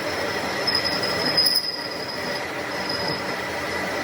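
A metalworking machine running with a steady high-pitched whine over a rough noise.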